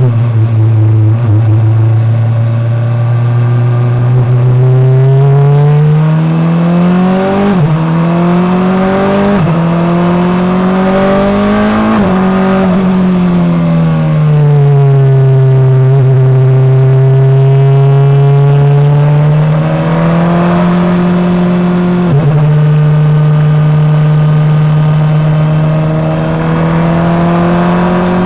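In-car sound of an FIA Formula Two car's turbocharged 1.8-litre four-cylinder engine at racing speed. Its note climbs through the gears with quick upshifts about 7½ and 9½ seconds in, peaks around 12 seconds, sinks slowly over the next few seconds, then holds a steady high drone with two brief breaks in the last third.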